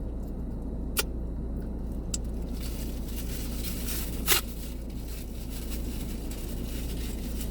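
Takeout food and containers being handled: light rustling with two sharp clicks, about one second and four seconds in, the second the louder, over a steady low hum.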